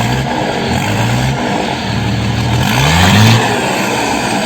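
Ford F-250's MWM six-cylinder diesel idling with a deep rumble through a straight-through 5-inch exhaust with no muffler. It is revved once about two and a half seconds in, the pitch rising and then falling back to idle.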